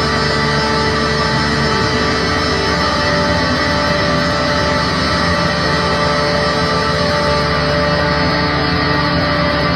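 Live instrumental music from an electric guitar and a Roland keyboard, playing a dense, sustained passage of long held tones at a steady loudness.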